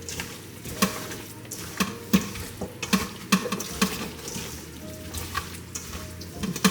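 Hands squishing and kneading seasoned raw oxtail pieces: irregular wet squelches and smacks, a few a second, as the seasoning is rubbed into the meat.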